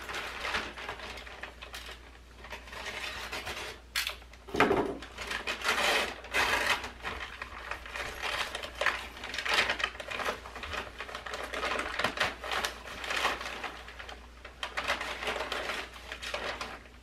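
Paper mailing envelope being torn open and its contents rustled by hand, in repeated crinkling, tearing bursts.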